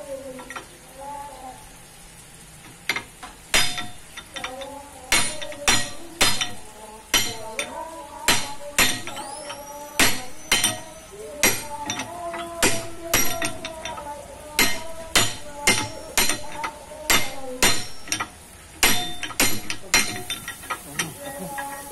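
Hand hammer striking the steel rotor shaft of a sand-crushing hammer mill, driving it through the hammer blades: a run of sharp metallic strikes that ring, irregular and about one or two a second, starting about three seconds in.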